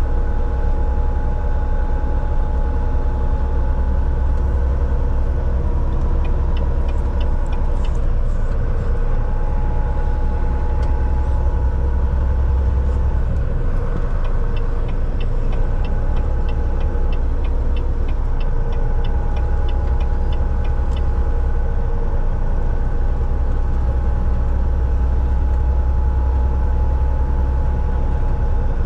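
Volvo semi-truck driving on the road: a steady low diesel drone and road rumble with a constant whine from the drivetrain. Runs of light, evenly spaced ticks come in twice.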